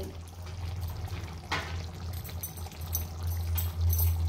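Prawn curry simmering in a kadai, a soft bubbling over a low steady hum, with a single click about a second and a half in.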